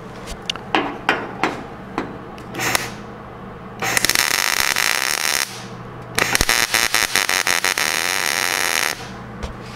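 MIG welder laying a rosette (plug) weld through a drilled hole into the sheet metal behind. It gives two runs of steady crackling sizzle, the first about a second and a half long and the second about three seconds, with a short break between. A few light clicks and knocks come before the welding starts.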